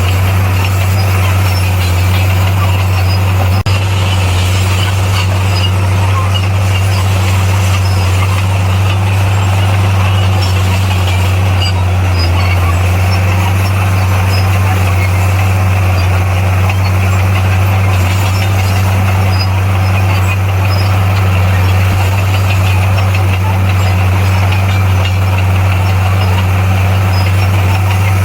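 Bulldozer's diesel engine running steadily, a deep even hum with no change in pitch.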